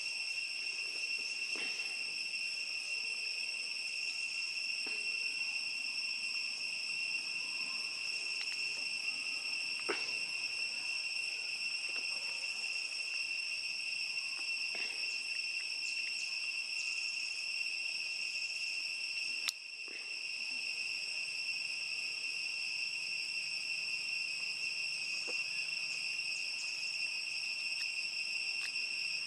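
Steady, shrill insect chorus holding one high pitch without a break, with faint scattered ticks over it and one sharp click about two-thirds through.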